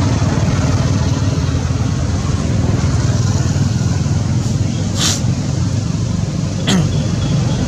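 An engine running steadily close by, a low even hum. About five seconds in there is a short hiss, and a sharp click near the end.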